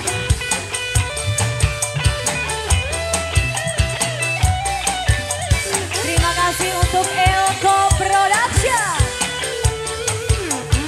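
A dangdut koplo band playing live: a driving beat on the drums under electric guitars and keyboard. A lead melody line slides up and then down in pitch about eight seconds in.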